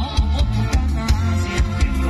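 Loud live music from a Thai rot hae sound-truck band: heavy bass and a steady, quick drum beat with a melody line over it, mostly instrumental here.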